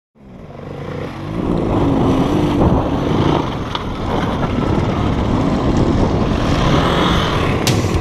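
Dirt bike engine running, fading in over the first second or so, with its pitch wobbling briefly about two seconds in. A couple of sharp clicks come near the end.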